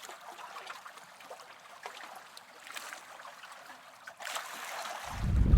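Faint trickling and pattering of water. About five seconds in, strong wind buffeting the microphone rises sharply and becomes the loudest sound.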